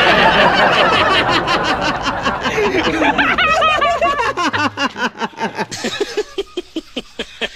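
Water splashing as it sprays out of a rigged snack can, then snickering laughter in rapid, evenly pulsed bursts that thin out near the end.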